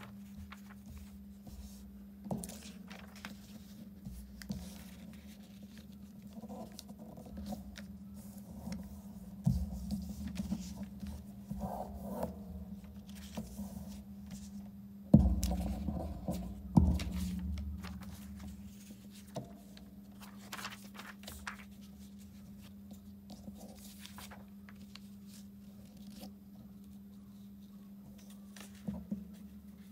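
Sheets of patterned paper being handled, folded and creased by hand on a tabletop: paper rustling, sliding and scraping with scattered light taps, and a few heavier thumps about halfway through as the paper is pressed down. A steady low hum runs underneath.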